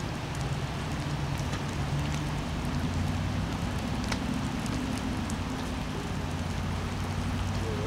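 Steady rain falling on wet branches and ground, with a rush of river water and scattered drips. Underneath runs a low steady drone of idling diesel locomotive engines.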